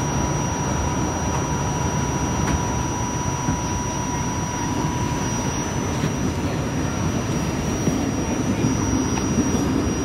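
RTA Blue Line light rail car running along the track: a steady rumble of wheels and traction motors, with a thin high whine held steady above it and a fainter tone that fades out near the end.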